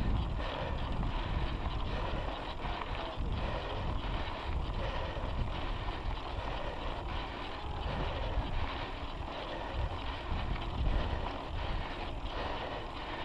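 Wind rushing over the camera microphone on a moving mountain bike, with the knobby tyre rolling on asphalt and faint knocks and rattles from the bike.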